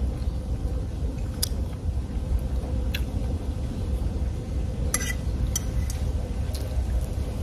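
A few light clinks of cutlery on plates and bowls, the loudest a quick cluster about five seconds in, over a steady low rumble of wind on the microphone.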